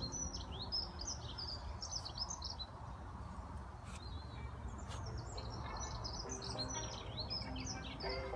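A small songbird singing in quick, high, twittering phrases: one run at the start and another from about halfway, over a steady low background rumble.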